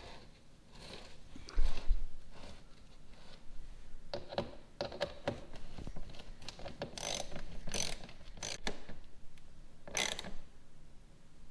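Hand ratchet clicking in short runs as hex screws are driven back in to hold a mud flap to the wheel well. A dull thump about two seconds in.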